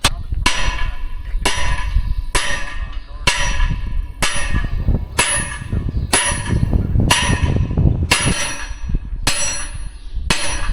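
A sledgehammer pounds a steel hex shaft through a corn head's row-unit clutches, about a dozen blows at roughly one a second. Each strike rings metallically, and each moves the stuck shaft only about an eighth of an inch.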